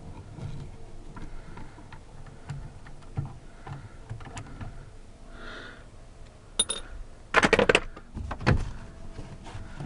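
Hand work on a 2005 Kia Sedona's plastic door trim panel: scattered small clicks and knocks, then a short burst of loud clatter about seven and a half seconds in.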